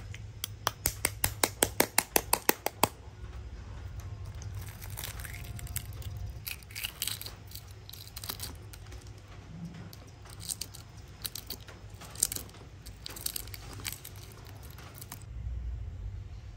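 Shell of a boiled fertilised duck egg (balut) tapped about a dozen quick times, roughly five a second, to crack it, then the broken shell crackling and clicking as fingers pick it away.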